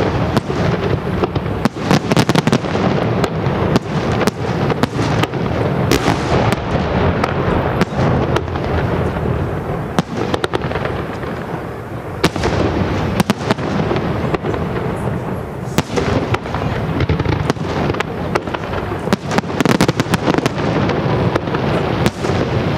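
Aerial firework shells bursting in quick succession: many sharp bangs over a continuous wash of noise.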